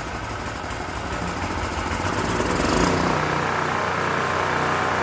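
Small portable generator engine running steadily just after starting; its carburetor was freshly cleaned after years unused. It gets a little louder about two seconds in.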